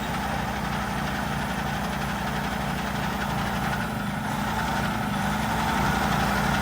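A vehicle's engine held at raised revs under load as it is driven up onto a transport trailer, steady and growing slowly louder.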